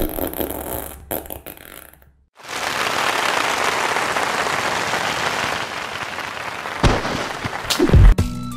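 Fart sound effects: a long, even hissing stretch lasting about four seconds, then a few short, low bursts near the end, the last one the loudest.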